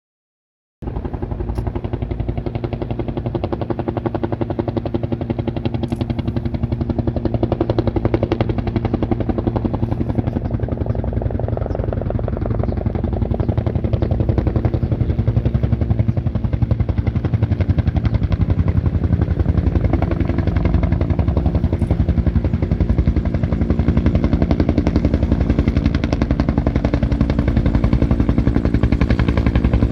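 Rescue helicopter's rotor beating in a rapid, steady chop over the turbine's hum, starting abruptly just under a second in and growing slightly louder.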